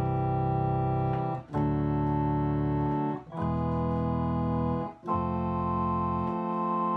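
Yamaha BK20AS electronic organ playing four sustained chords with a brass registration: 8-foot horn, 16-foot trombone and 8-foot brass added to flute, cello and string voices. The chords change about every one and a half seconds over a deep bass.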